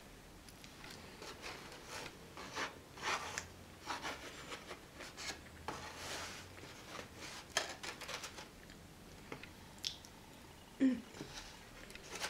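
Close-miked chewing and mouth sounds of a person eating, with a metal fork scraping and tapping in a foam takeout container. A short, louder low voiced sound, falling in pitch, comes near the end.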